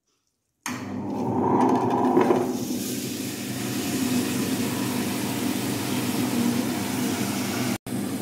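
Tabletop wet grinder running, its two grinding stones rolling and rasping on soaked rice in the steel drum over a steady motor hum. It starts suddenly about a second in and cuts out for an instant near the end.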